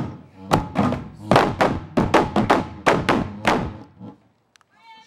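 Large drums beaten with sticks in a quickening rhythm of heavy thuds, each ringing briefly, that stops abruptly after about three and a half seconds. A high singing voice starts near the end.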